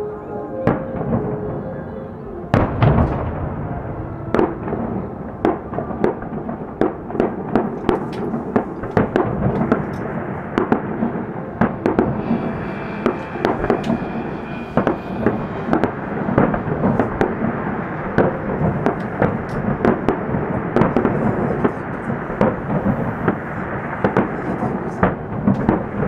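Aerial firework shells bursting in quick succession, with sharp bangs coming two or three a second over a continuous rumble and crackle. The heaviest, deepest bang comes about three seconds in.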